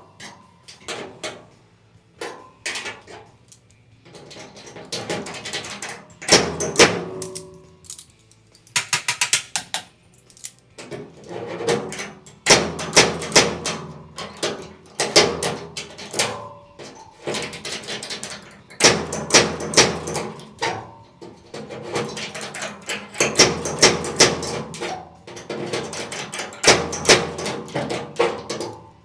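Hammer striking sheet-metal body panel in rapid runs of blows, the metal ringing after the strikes, with short pauses between the runs.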